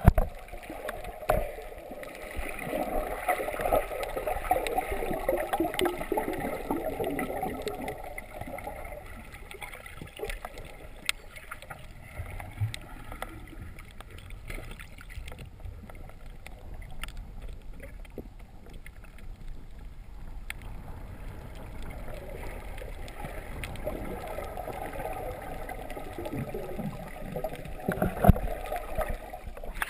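Muffled underwater water and bubble noise from swimmers moving through the water, heard on a submerged camera. It is busier near the start and again near the end, quieter in between, with scattered small clicks.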